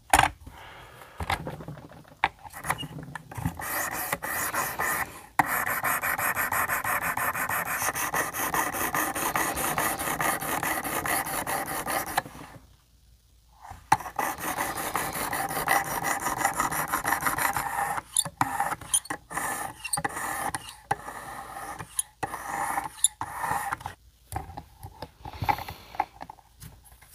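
800-grit sharpening stone on a guided sharpener's rod, stroked rapidly back and forth along a clamped knife edge: a steady run of fine scraping strokes. It stops for about a second midway, then resumes in more broken-up strokes.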